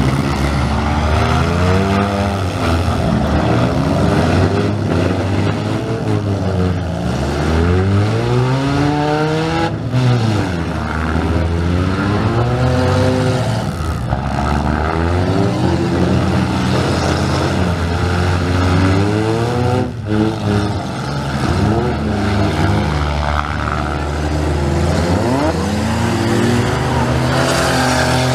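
Several gutted compact demolition-derby cars' engines revving hard at once, their pitches rising and falling over and over as the drivers accelerate, brake and reverse into each other.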